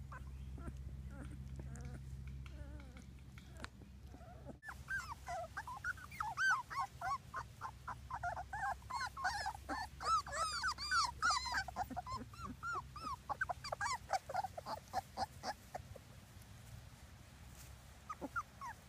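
Three-week-old Labrador Retriever puppies whimpering and squeaking: many short, high cries that rise and fall in quick succession, overlapping, thickest in the middle and thinning out toward the end. A few faint cries and a steady low hum come first, up to a sudden change about four and a half seconds in.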